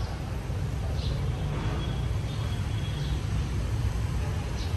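Outdoor ambience: a steady low rumble of road traffic, with a few faint high chirps now and then.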